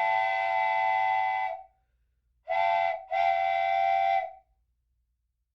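Steam locomotive whistle blown three times: a long blast, a short one, then another long one. Each blast is a steady chord of several notes.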